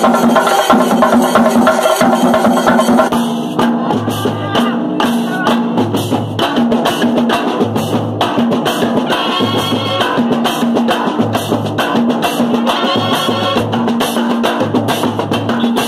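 Kerala chenda drums beaten with sticks in an ensemble: fast, dense drumming. About three seconds in the sound changes to a steadier repeating percussion pattern with a deep beat about every second and a half.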